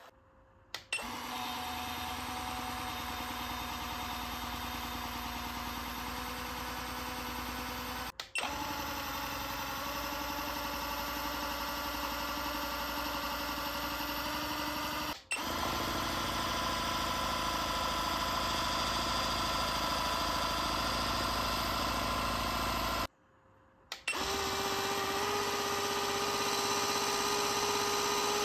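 Gemmy dancing hamster toy's small electric motor and gears running with a steady buzzing whine, driven well above its battery voltage from a bench power supply. The sound cuts out briefly three times and comes back higher in pitch each time the voltage is stepped up.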